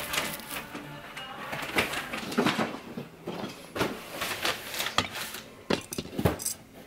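Shiny ball Christmas ornaments being set one by one into a cardboard box of other ornaments: a string of sharp, irregular clinks and taps as they knock against each other, with rustling between.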